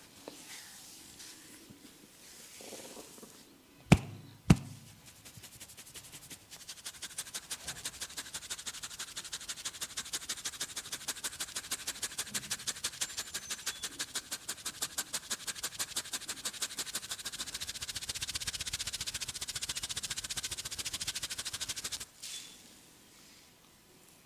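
Two loud sharp cracks half a second apart, then a masseur's hands striking the head in a rapid percussive tapping massage: a long, fast, even run of crisp slaps that stops abruptly near the end.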